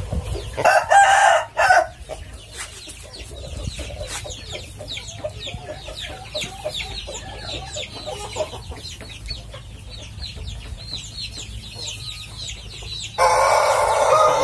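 Chickens: a loud squawk about a second in, then softer clucking with many high, quick chirps, and a rooster breaking into a long crow near the end.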